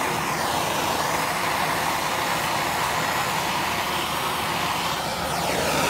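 Plumber's gas blowtorch burning with a steady rushing hiss as its flame heats solder paint on a steel car body panel, tinning the panel before lead loading. Its tone sweeps downward once at the start and again near the end.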